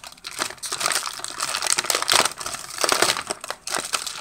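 Plastic film wrapper of a Chips Ahoy! cookie pack crinkling and crackling in quick, irregular bursts as fingers pick at it and pull it open.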